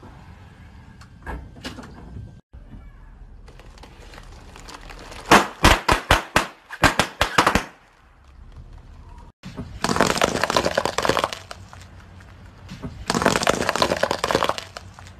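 A car tyre rolling over and crushing objects in a run of short clips. A quick series of sharp snaps and cracks comes about a third of the way in. Two dense stretches of crackling follow in the second half, each lasting a second or more.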